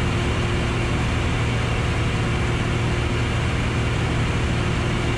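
Piper Arrow's piston engine and propeller droning steadily in flight, heard inside the cockpit.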